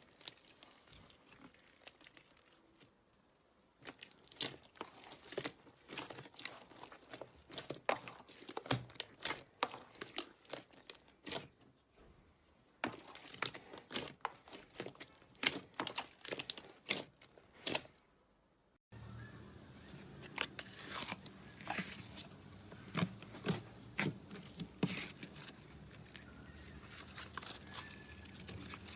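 Slime being squeezed and pressed by hand close to the microphone: a dense, irregular run of crackles, clicks and pops. It comes in separate clips that cut in abruptly, about four seconds in, about thirteen seconds in and again about nineteen seconds in.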